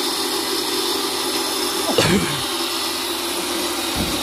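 Electric pressure washer motor running with a steady hum, with a short clatter about halfway through and a thump near the end.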